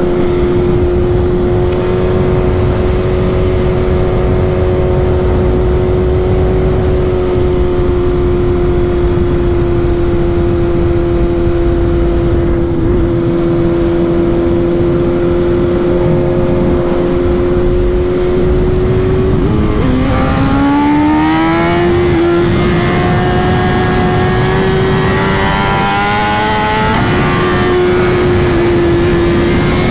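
BMW S1000RR inline-four engine running at high, steady revs under way, with wind rushing over the microphone. About two-thirds of the way through the revs dip and then climb as the bike accelerates again, with another brief drop in revs near the end.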